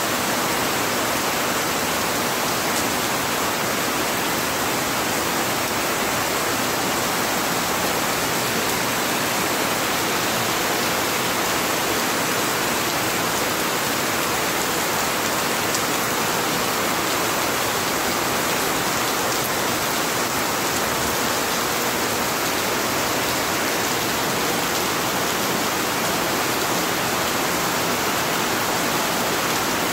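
Heavy rain pouring steadily, a dense, even hiss with no let-up.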